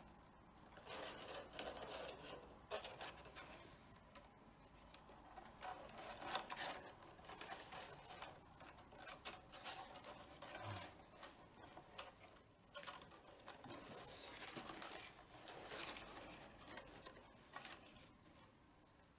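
Faint, irregular rubbing and scraping of a leather badhi strap being threaded and pulled through the holes in a tabla head's rim, with a few small clicks.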